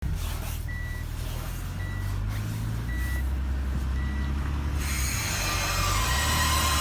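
Nissan Elgrand idling with a steady low hum. Four short high beeps sound about a second apart. From about five seconds in, a hissing, whirring noise sets in with a faint thin squeak in it, the unexplained squeak in the van.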